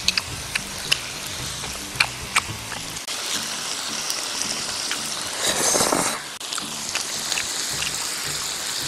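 Meat sizzling on a hot stone grill plate, a steady hiss. Chopsticks click against a plate a few times in the first couple of seconds, and a loud slurp of noodles comes a little past the middle.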